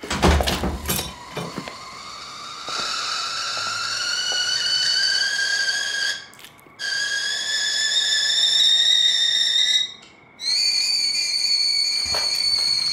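A shrill, kettle-like whistle that rises slowly in pitch and breaks off twice for about half a second, coming back higher each time. A few knocks in the first second.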